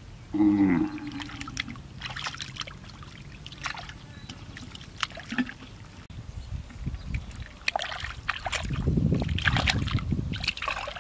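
Hands sloshing and splashing in shallow muddy water, groping for fish, with irregular small splashes that grow busier near the end. About a second in, a short voice-like sound falling in pitch is the loudest thing heard.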